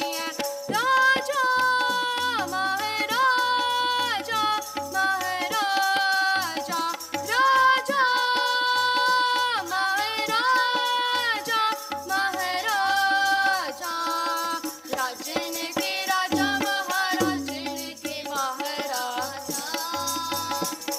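Sikh keertan: children's voices singing a Gurbani shabad to a harmonium, with tabla keeping a steady rhythm. The melody moves in long held notes with sliding ornaments between them.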